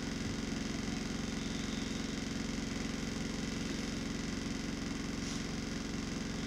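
Bus engine idling steadily while the bus stands still, heard from inside the upper deck as an even, pulsing low hum with cabin vibration.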